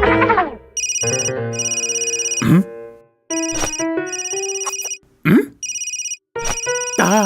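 A cartoon telephone ringing in repeated trilling bursts, broken up by quick swooping sound effects: one falling at the start and rising swoops about a third and two-thirds of the way in. Music comes back in near the end.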